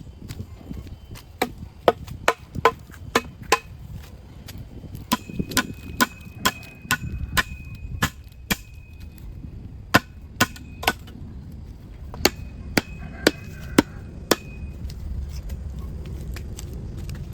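A hand tool striking wood or bamboo: sharp chopping blows in runs of several, about two or three a second, with short pauses between the runs.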